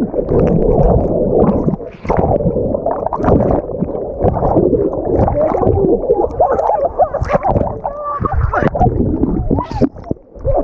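Churning river-rapid water picked up by a camera dipping under and out of the water: muffled underwater gurgling and rushing, with splashing as it breaks the surface near the end.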